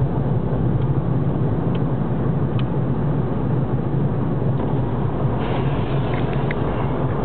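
Steady drone of a moving car heard from inside the cabin. From about five and a half seconds in, a lit firework's fuse adds a faint fizzing crackle.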